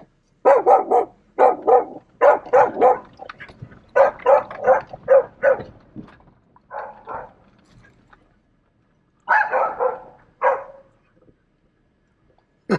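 Dogs barking in quick volleys of three or four loud barks through the first six seconds, then a few scattered barks later on.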